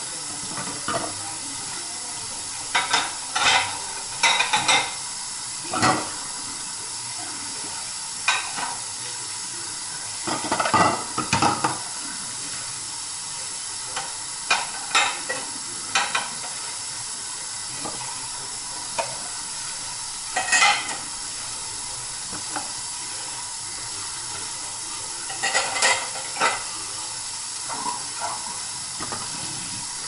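Kitchen tap running steadily into the sink while dishes are washed by hand, with irregular short clinks and clatters of a pan, plates and cups knocking against the sink and the dish rack, a loose cluster of them around ten to twelve seconds in and another near twenty-six seconds.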